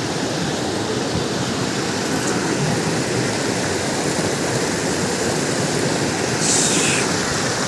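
Waterfall pouring close by, a steady rushing of falling water, with a brief sharper hiss about six and a half seconds in.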